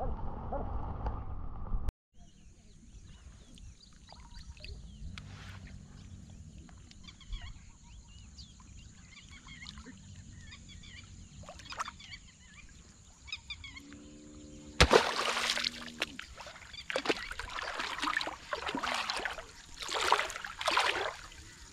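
Feet wading and splashing through shallow floodwater: a run of loud, uneven splashes over the last third, after a quiet stretch with a steady high-pitched drone and faint chirps.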